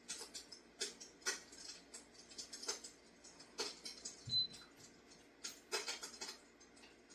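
Electric fireplace insert's simulated fire-crackling sound effect: irregular sharp pops and crackles, a few a second. About four seconds in, a soft thump with a brief high beep.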